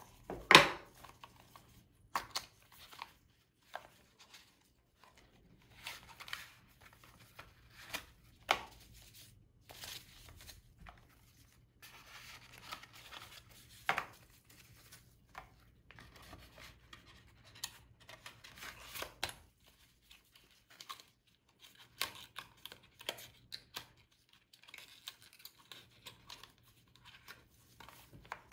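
A cardboard phone box and paper leaflets handled by gloved hands: scattered rustling and scraping of card and paper, with light knocks as pieces are picked up and set down, the sharpest about half a second in.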